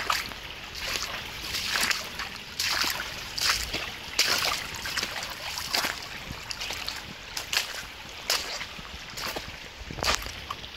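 Footsteps walking along a shallow rocky stream, crunching and splashing on wet stones and gravel at a steady walking pace, about one step a second.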